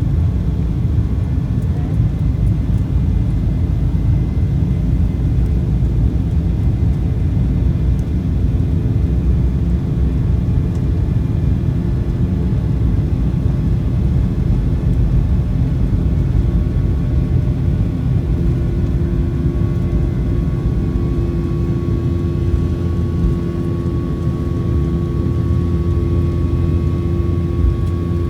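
Aircraft engine and airflow noise heard from inside the cabin in flight: a loud, steady low drone. About two-thirds of the way in, a steady higher hum joins it and holds.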